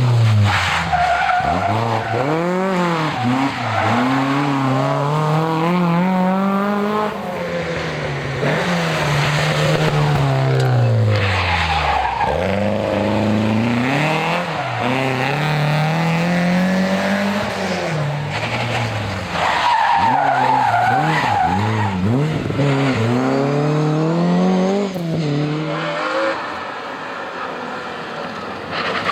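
Historic rally car engines revving hard, climbing through the gears, then dropping in pitch on the brakes and lifting again, with tyres skidding. The revs rise and fall repeatedly, and one run-down and pull-away comes about halfway through.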